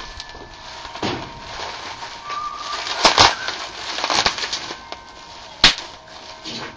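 Plastic bubble wrap crinkling and rustling as it is pulled and bunched off an accordion, with one sharp snap about two-thirds through.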